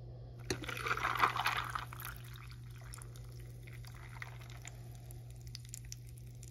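Coffee poured from a glass carafe over ice cubes in a ceramic mug. The pour is loudest for the first second and a half, then thins to a quieter trickle with scattered small clicks among the ice.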